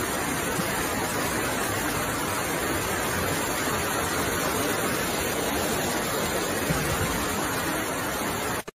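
Fast-flowing floodwater torrent rushing steadily, a dense, even rushing noise that cuts off suddenly near the end.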